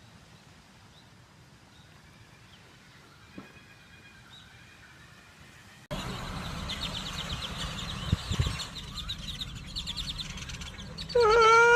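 Birds chirping: faint short chirps at first, then about six seconds in a louder rapid run of high chirps with a few thumps. Near the end comes a loud animal call with a sliding pitch.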